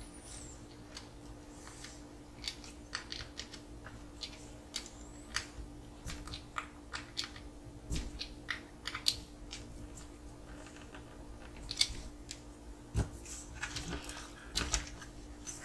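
Irregular light clicks and taps of small plastic and metal RC car parts being handled and fitted together, such as wheel bearings, pins and plastic hex drives, over a steady low hum.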